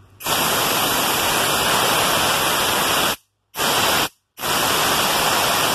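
Compressed-air blow gun hissing as it blasts air down the evaporator drain to clear a clogged drain elbow. It comes in three blasts: a long one of about three seconds, a short one, then another of about a second and a half, each cut off suddenly.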